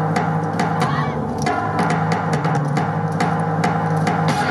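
Recorded yosakoi dance music with a drum-led rhythm of sharp percussive hits over a steady low tone. Right at the end it moves into a fuller section.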